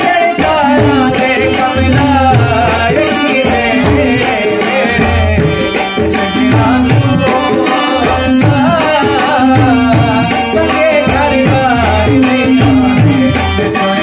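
A man singing a folk song over music with a steady hand-drum rhythm.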